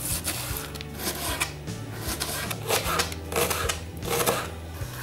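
Kitchen knife dicing an onion on a plastic cutting board: a series of crisp chopping cuts. Soft background music with a low steady bass underneath.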